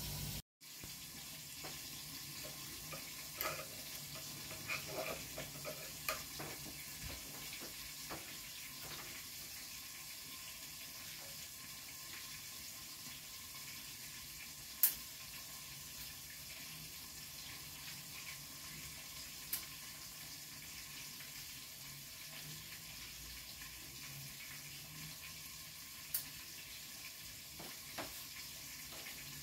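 Kitchen tap running steadily into the sink, with a few sharp clicks and knocks scattered through it, the loudest about halfway.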